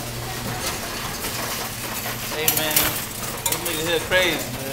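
Pennies clinking and rattling, with a few sharp metallic clicks in the second half and indistinct voices in the background.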